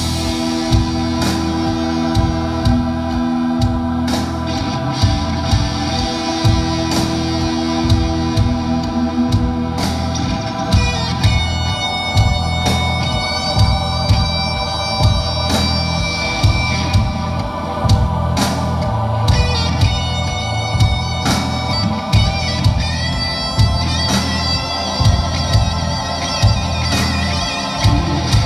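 Live rock band playing an instrumental piece on drums, bass, electric guitar and keyboards, with a steady drum beat. A high, held lead line comes in about eleven seconds in.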